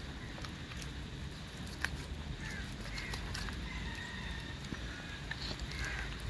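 Chickens calling: several short high calls and one longer held call, over a steady low rumble with scattered clicks.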